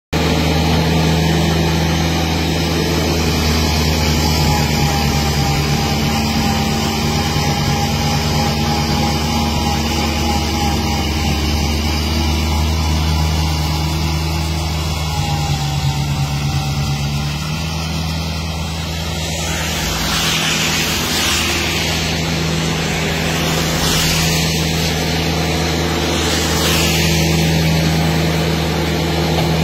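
Massey Ferguson GC1700 sub-compact tractor's diesel engine running steadily while driving its front-mounted snow blower. In the last third a rushing hiss swells and fades several times over the engine.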